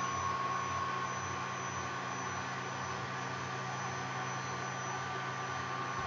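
MakerGear M2 3D printer's Z-axis stepper motor raising the build plate to home, a steady, even hum with thin high tones.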